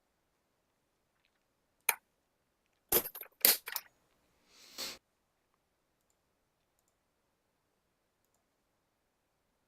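A single sharp click, then a quick cluster of sharp clicks and knocks about a second later, followed by a short hissing noise.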